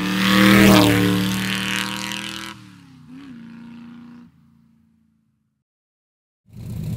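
Motorcycle engine sound rising to its loudest just under a second in, then fading away, with a short blip of revs about three seconds in. After about two seconds of silence, the engine is heard running again near the end.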